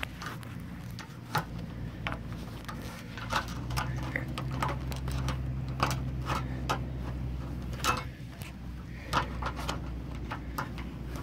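A gloved hand working the plastic bayonet fitting of an RV sewer outlet: a string of irregular clicks, knocks and scrapes of plastic parts being handled.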